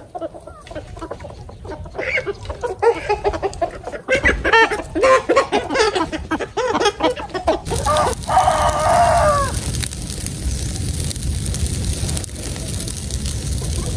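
Chickens clucking, then a rooster crows once about eight seconds in, a call of nearly two seconds that falls at its end. A steady hiss follows.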